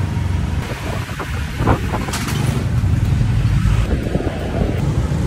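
Motorbike street traffic heard while riding along: scooter engines running with a steady low rumble.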